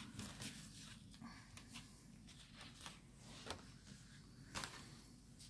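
Near silence with a few faint, scattered clicks and rustles of hands handling the foiled card and plate on the foiling platform.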